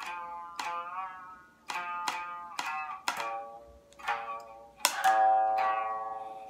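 Biwa, a Japanese lute, struck with a large plectrum: about eight separate plucked strokes with ringing notes, several bending in pitch, then a louder stroke about five seconds in that rings on and fades.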